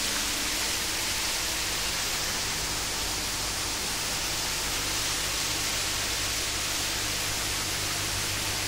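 Aerated water in a biofloc shrimp tank, churning and bubbling steadily as air stones pump air through it, heard as an even rushing fizz. A steady low hum runs underneath.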